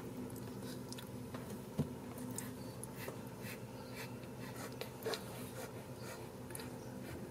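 Kittens moving and scrabbling close to the microphone: scattered small clicks and scratchy rustles over a steady low hum, with a knock about two seconds in and a smaller one about five seconds in.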